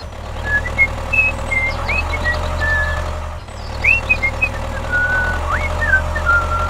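Small electric motor of a miniature model machine running steadily with a low hum and a steady whine. It eases off briefly about halfway, then picks up again. Short high chirps and pitch glides come and go over it.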